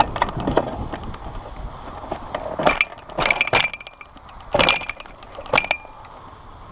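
A run of sharp clattering knocks and rattles, several of them with a brief high squeal, loudest in the middle of the stretch.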